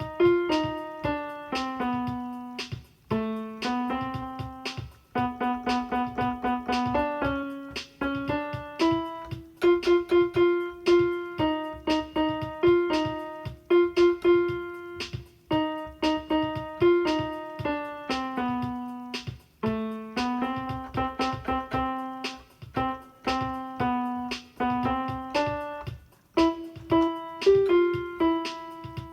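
Solo piano playing a melody of short, evenly paced struck notes, each note ringing briefly and decaying.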